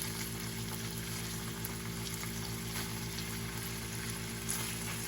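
Fish fillets frying in oil in a pan: a steady sizzle with faint scattered crackles, over a steady low hum.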